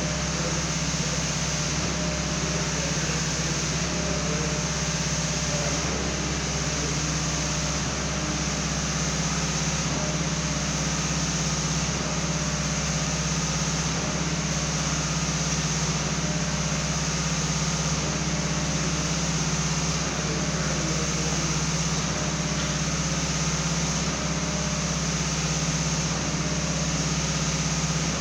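Concrete pump's engine running steadily under load while concrete is pumped through the hoses, a constant low drone with no breaks.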